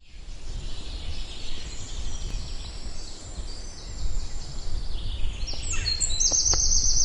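Outdoor ambience of a steady low rumble and hiss, with birds chirping. The birdsong grows in over the last couple of seconds, with a fast trill near the end.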